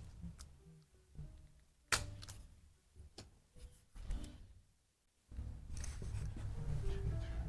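Handling noise of a chiropractic adjustment on a treatment table: three sharp cracks about two seconds apart amid shuffling and faint squeaks, then a steadier low rustling of bodies shifting on the table from about five seconds in.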